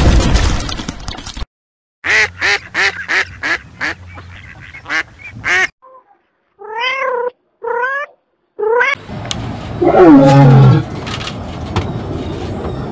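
A string of animal calls cut one after another: a roar that cuts off about a second in, a rapid run of short calls, then a kitten meowing three times with a wavering pitch, then a lion roaring, loud and falling in pitch.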